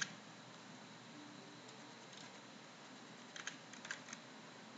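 Computer keyboard keystrokes as numbers are typed in: a few faint, scattered key clicks, then a quicker cluster of clicks in the last second and a half, over a low steady hiss.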